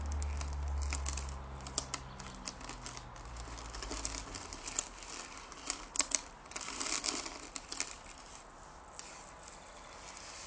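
Close-up handling of a small object: irregular sharp taps and clicks with a brief crinkling stretch, over a low hum that stops about four seconds in.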